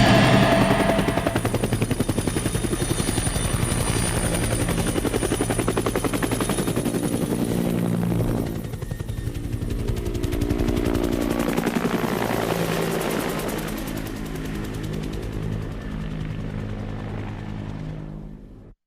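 Helicopter rotor chop: a fast, even beat with a high turbine whine over it in the first half, over low held tones, fading away at the end.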